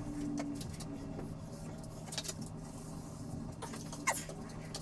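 Steady low hum under a few light clicks and knocks: a long metal spirit level being shifted and set against a wall.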